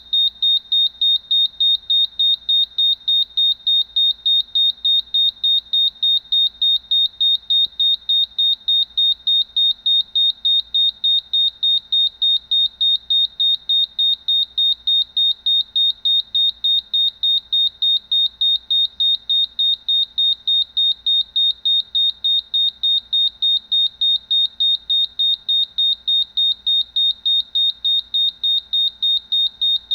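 Gas leak fire alarm system's warning buzzer sounding in alarm after its detector has sensed test gas: one high-pitched tone beeping rapidly and evenly, without a break.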